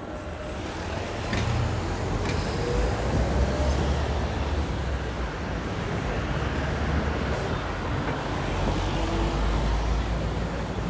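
Road traffic passing close by: a steady low engine rumble with tyre and road noise, swelling about a second in and staying loud.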